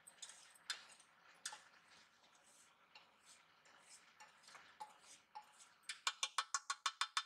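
A wooden spatula scraping roasted semolina out of a stainless steel pan into a bowl, with scattered light scrapes and taps. Near the end comes a quick even run of about a dozen sharp taps, the loudest part.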